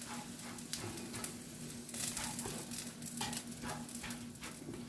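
Slotted spatula stirring and scraping pulled pork in barbecue sauce around a small pot, a quick irregular run of scrapes and taps over a faint sizzle, with a steady low hum beneath.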